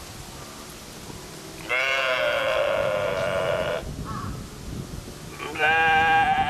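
Goat bleating twice: a long bleat of about two seconds, then a shorter one near the end.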